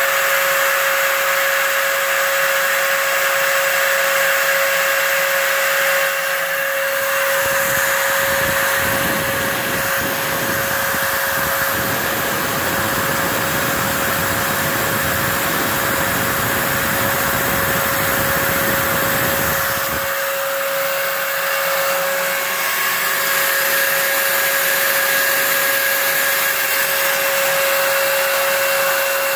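Home-built CNC mill's router spindle and dust-extraction vacuum running steadily, a constant whine over a rushing hiss, as the bit mills a dish into pink foam board. A rougher low rumble joins for about thirteen seconds in the middle.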